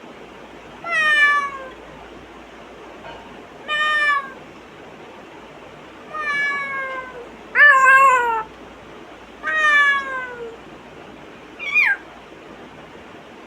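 African grey parrot mimicking a cat's meow, six meows in a row, each sliding down in pitch.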